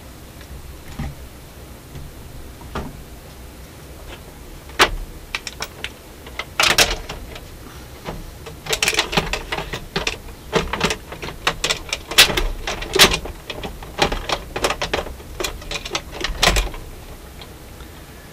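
Irregular clicks, knocks and light clatter of a Dual 1228 turntable deck being handled by hand, turned over and seated back in its plinth. The clicks begin about five seconds in and come thickest in the second half.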